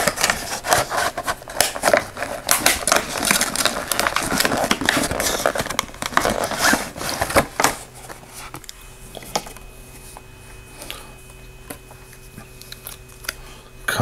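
Cardboard flashlight box being opened and its clear plastic clamshell tray slid out and handled: a dense run of rustling, scraping and crinkling clicks for the first seven or eight seconds, then only a few scattered taps.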